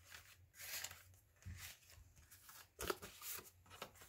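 Faint rustling and sliding of paper and card as tags and a ticket are pulled out of a paper pocket in a handmade junk journal, with a light tap about three seconds in.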